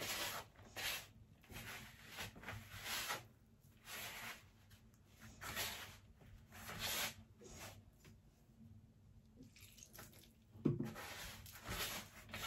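Hands rubbing and scraping a crumbly flour, butter and smen mixture in a woven bowl: irregular rustling strokes about once a second, with a short pause about eight seconds in. This is the moistened mixture being gathered into a soft dough with water and orange blossom water, not kneaded.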